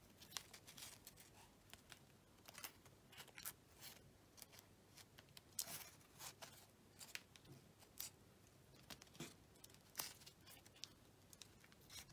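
Faint, scattered crinkles and clicks from hands working aluminium foil and wrapping tape.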